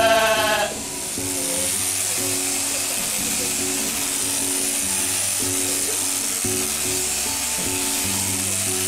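A sheep bleats once, loud and wavering, right at the start. Then background music plays, with a steady high buzz from electric sheep-shearing clippers beneath it.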